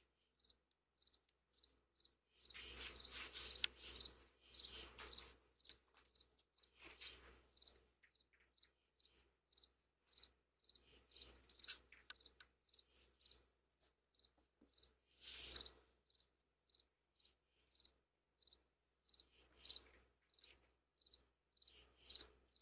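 Faint cricket chirping, short high chirps repeating about twice a second, with a few brief bursts of hissy rustling noise.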